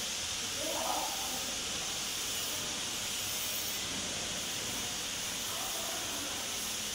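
Steady hissing background noise of a factory hall, with no distinct machine cycle or impacts standing out.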